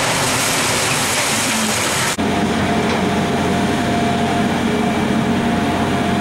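John Deere demolition excavator's diesel engine running steadily, with a thin steady high whine over it. For about the first two seconds a loud even hiss lies on top, and it cuts off suddenly.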